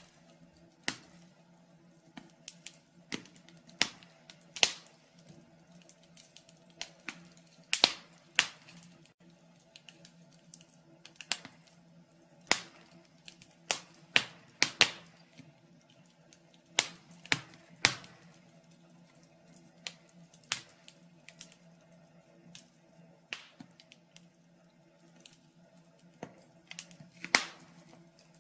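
Wood fire in a fireplace crackling, with irregular sharp pops of uneven loudness over a faint steady low hum.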